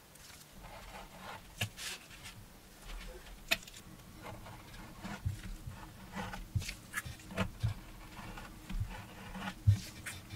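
Leather wallet pieces and a hand tool handled on a work surface: irregular rustling and scraping, with a few sharp taps and clicks, the loudest near the end.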